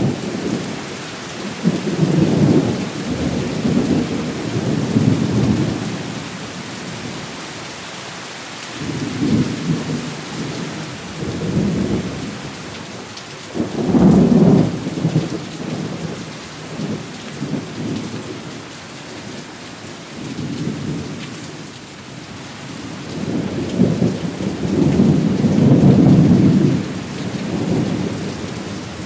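Thunderstorm: steady rain hiss with repeated long rolls of thunder. The loudest rolls swell near the start, in the middle and near the end.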